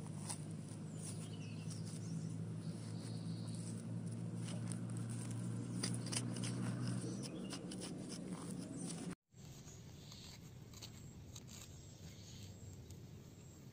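A small hand tool scraping and digging into wet mud, with short scrapes and clicks, over a low steady hum that stops about seven seconds in. The sound drops out briefly about nine seconds in and is quieter after that, with lighter scraping.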